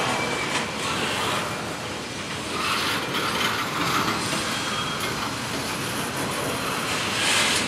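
Train rolling past, its railcars' wheels clattering over rail joints, with a faint high wheel squeal now and then.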